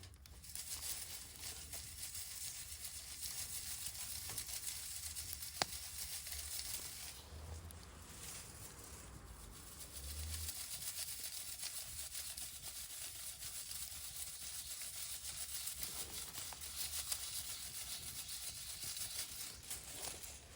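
Wood campfire crackling, a dense run of small crackles with one sharp crack about five and a half seconds in.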